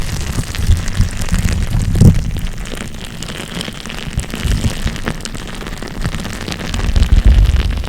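ASMR trigger sounds made right against the microphone: irregular low thumps with crackling clicks and scratches, louder about two seconds in and again near the end.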